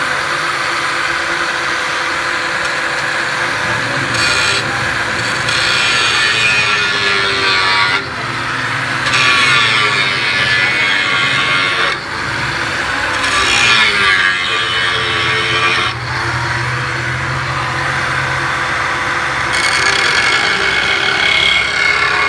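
Angle grinder running and cutting sheet metal, a continuous high whine whose pitch shifts as the disc bites, with brief dips in level about every four seconds.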